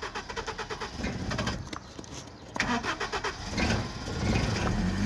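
Toyota car's engine being cranked by the starter motor with a rapid, even rhythm for about two and a half seconds, then catching and running, growing louder toward the end.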